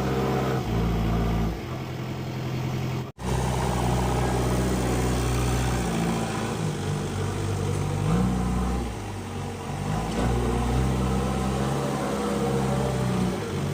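Diesel engine of a JCB 3DX backhoe loader running under changing load, its pitch rising and falling several times as the engine is revved. The sound drops out for an instant about three seconds in.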